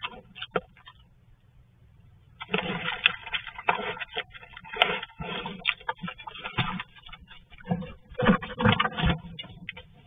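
A black bear moving and feeding right up against a trail camera, heard through the camera's small microphone: irregular crunching and scraping noises that start after about two seconds of quiet and are loudest near the end.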